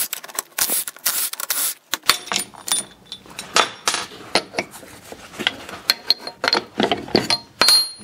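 Irregular metal clinks and knocks, some ringing briefly, as a two-stroke jet-ski crankshaft is handled and shifted about in its truing stand.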